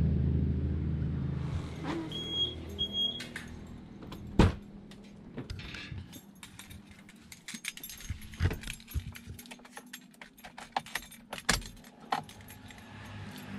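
Two short high electronic beeps from a car's remote-locking chirp. A sharp knock about four and a half seconds in, then a busy run of clicks, knocks and keys jangling as the car door is opened and someone climbs in and handles the keys.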